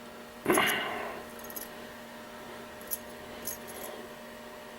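A short breathy sound about half a second in, then a few faint light metallic clicks as the buzzbait's stainless steel wire arm and blade are handled and bent.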